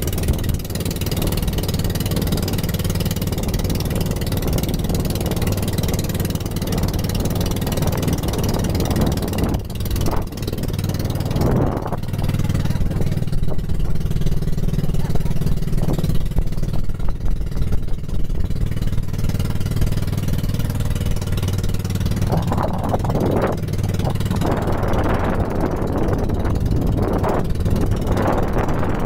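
Engine of a bamboo-outrigger boat running steadily under way, a constant low drone, with water rushing past the hull.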